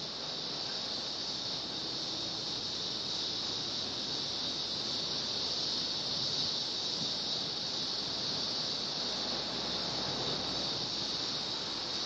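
Cicada chorus: a steady, unbroken high-pitched buzzing drone.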